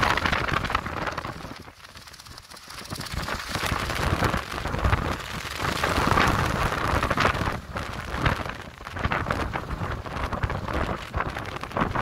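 Gusty windstorm wind buffeting the microphone, with the clear plastic sheeting of a small tent crackling and rattling in the gusts. The wind eases about two seconds in, then builds again.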